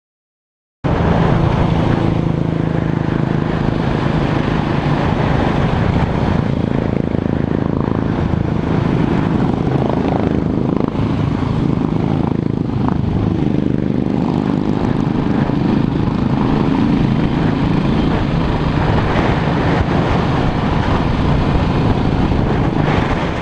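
Motorcycle engine running steadily, starting abruptly about a second in, with its pitch shifting slightly as it goes.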